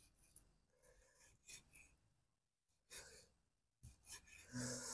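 Faint, irregular knife strokes slicing raw buffalo meat on a wooden chopping block: a few soft taps and scrapes against the board.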